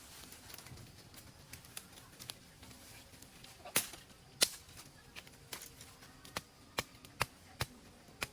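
A series of sharp cracks or knocks: two loud ones near the middle, then a run of five in a steady rhythm about two or three a second near the end.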